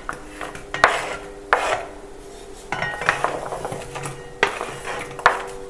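Wooden spoon scraping chopped onion, garlic and carrot across a plastic cutting board and into a pot, with several short knocks of spoon and board.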